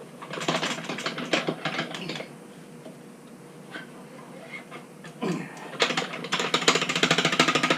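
Rapid metallic clicking and rattling as a motorcycle wheel is handled and turned over on a tire-changing stand. It comes in two stretches, one from about half a second to two seconds in and a longer, louder one from about five and a half seconds in.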